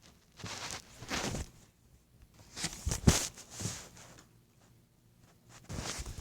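Rustling and shuffling movement sounds in several short bursts, with one sharp thump about three seconds in.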